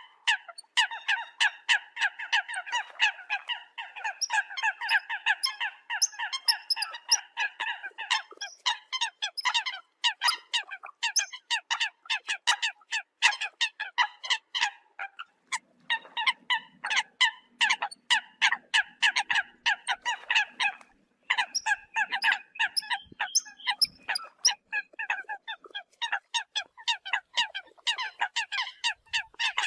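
Eurasian coots calling: a rapid, steady stream of short sharp calls, several a second, with brief pauses about 15 and 21 seconds in.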